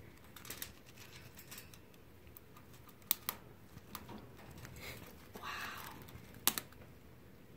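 Southern flying squirrel gnawing at the plastic wrapping of a birdseed bell: faint, irregular small clicks and crackles, with a couple of sharper clicks.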